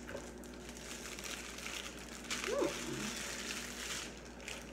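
A small plastic accessory bag rustling and crinkling as it is opened and handled, with an irregular rustle that grows louder about halfway through.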